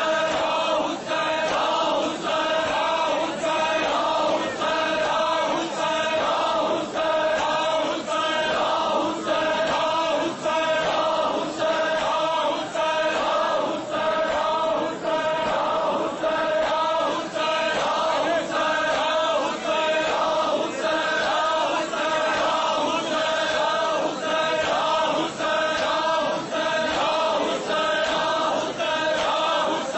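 A chorus of men's voices chanting a Shia noha (lamentation for Imam Hussain) together, with a regular beat running under the chant.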